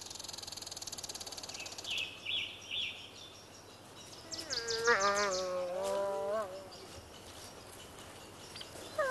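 Gray wolf whining: one high, wavering whine of about two seconds, about halfway through, and a short falling whine starting at the very end. Under it, a high insect buzz in the first two seconds and a few bird chirps.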